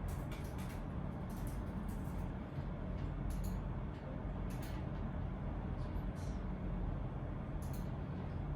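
Steady low background rumble of room ambience, with irregular light clicks and taps scattered through it.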